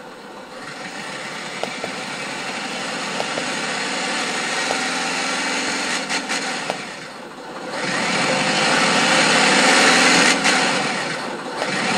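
Downloadable RC crawler-truck engine sound sample ('Crawler B') played back through a laptop's speakers: the engine runs steadily, dips briefly, then revs up louder for a few seconds about eight seconds in.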